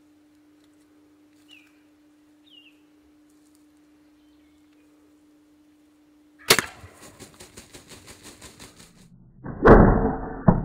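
A Merriam's gobbler scuffling with turkey decoys, then a bow shot at a few steps. A sudden loud thump comes about six and a half seconds in, followed by a rapid run of flutters about seven a second. Near the end come the loudest burst of noise and a sharp crack, fitting the arrow with its Magnus Bullhead broadhead striking the bird.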